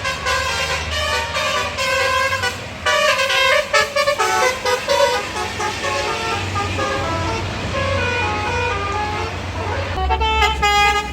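Bus telolet basuri horn playing a quick tune of stepped multi-tone notes, over the low rumble of a bus engine. Near the end the rumble strengthens and a new run of horn notes begins.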